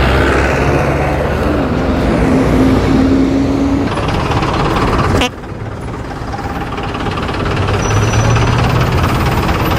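Busy city street traffic: bus and car engines running, with a steady hum that rises slightly and holds for about two seconds. The noise drops off abruptly a little past five seconds in, then slowly builds again.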